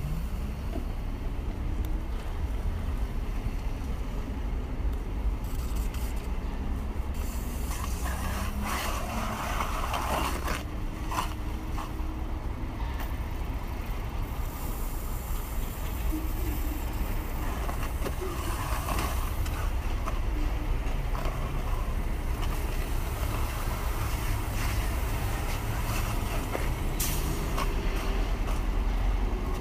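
Slow city traffic heard from a moving e-bike: a steady low rumble of car engines and tyres, with engine pitch rising and falling now and then and a few short knocks.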